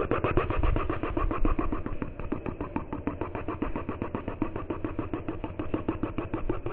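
A machine running with a rapid, even throb that stays steady throughout.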